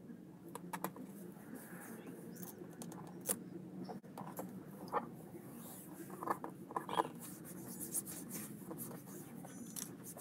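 Hands pressing, smoothing and peeling a self-adhesive leather-like kick guard on a car door panel: scattered small crackles, taps and rubbing, busiest in the middle.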